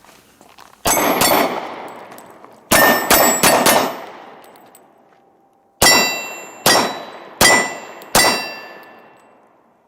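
Glock 23 Gen 4 pistol firing .40 S&W in three quick strings, about ten shots: two, then four, then four. Each shot is followed by the clanging ring of a steel plate target being hit.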